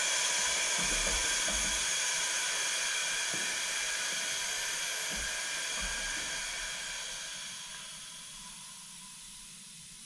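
Compressed air hissing as the air line is coupled to a sandblaster's pressure pot and air rushes in to pressurise it, holding steady for several seconds and then dying away as the pressure builds.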